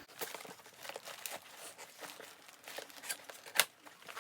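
Packaging of a camera box being handled and opened: crinkling with scattered small clicks and taps, the loudest a sharp click about three and a half seconds in.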